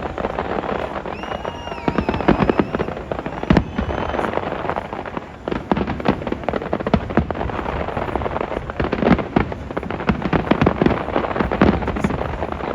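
New Year fireworks display: a dense, continuous barrage of bangs and crackling, many shots a second, with a brief lull about five seconds in.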